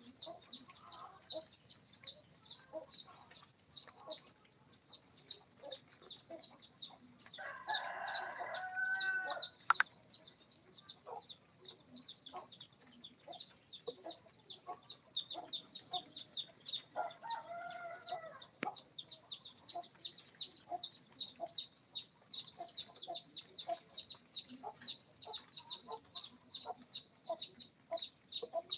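Chickens: a rooster crows twice, about eight seconds in and again about seventeen seconds in, amid scattered clucking and a steady run of rapid high peeps.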